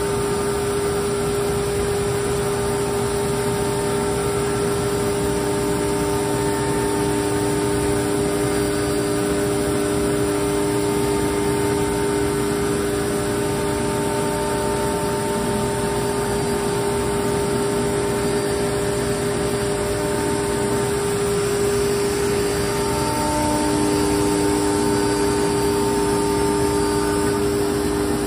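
Industrial plastics-processing machine running steadily: a constant mechanical hum and noise with several steady whining tones, a lower tone joining about twenty-three seconds in.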